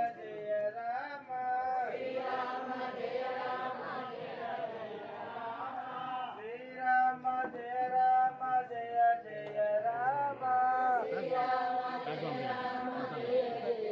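Hindu devotional chanting: a chanted melody on long held notes that bend and glide from one pitch to the next.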